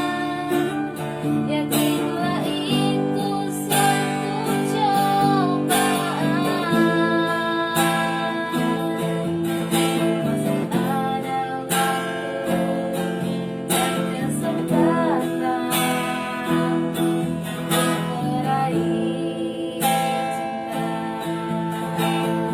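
Acoustic guitar strummed in a steady rhythm, playing sustained chords.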